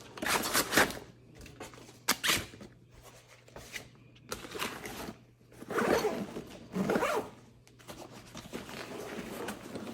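Zippers on a 5.11 Rush72 backpack being pulled, four short zips spread across a few seconds, with nylon fabric rustling between them as pockets are closed and the main compartment opened.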